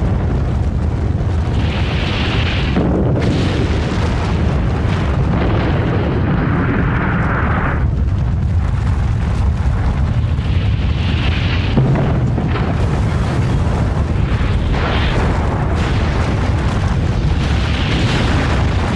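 Nuclear explosion blast: a loud, continuous rumbling roar with rushing swells of wind-like noise every few seconds.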